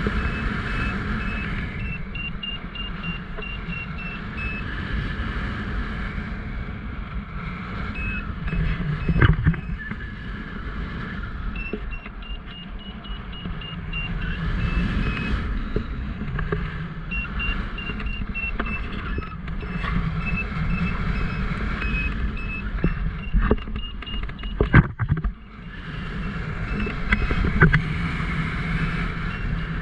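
Strong wind buffeting the microphone during a paraglider flight, with a variometer beeping in quick runs whose pitch drifts up and down as the lift changes. A few sharp knocks come through, around a third of the way in and again past the middle.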